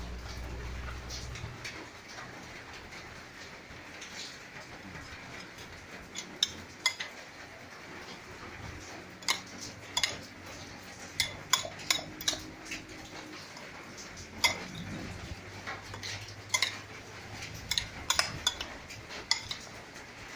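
Utensils clinking against dishes or a bowl: a long run of sharp, irregular clinks that thickens after the first few seconds.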